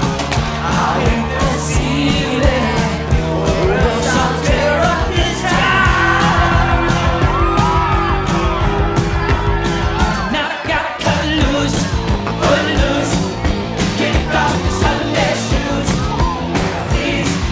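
Loud rock-and-roll style music with singing and yelling over a steady beat, with a brief dip about ten seconds in.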